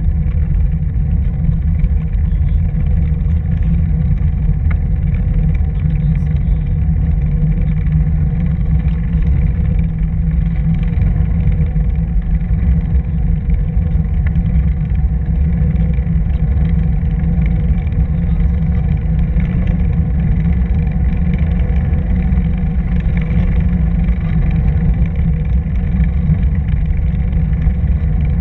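Steady low rumble of wind buffeting the microphone and tyre noise from a camera travelling along a paved bike path, with a faint steady hum over it.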